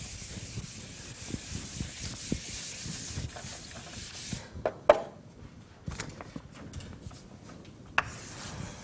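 Chalkboard being wiped with a duster: a steady scratchy rubbing in quick strokes that stops about four and a half seconds in. A few sharp knocks and taps follow, the loudest about five seconds in.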